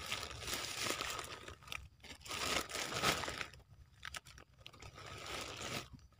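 Thin plastic carrier bag crinkling and rustling in irregular bursts as a wet, tangled gill net is pushed and packed down into it by hand.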